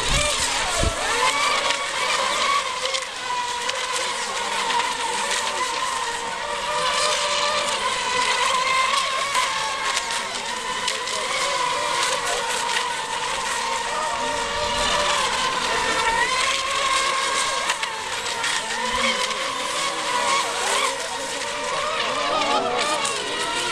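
Several electric RC racing boats running flat out, their motors giving a steady, overlapping high-pitched whine whose pitch wavers as the boats race.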